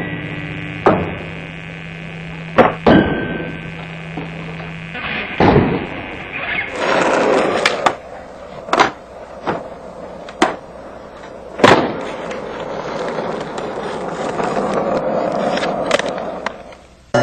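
Skateboard wheels rolling and sliding on concrete, with a series of sharp clacks from the board popping and landing.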